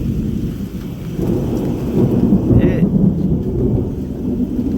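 Thunder rumbling over steady rain, with the rumble swelling about a second in.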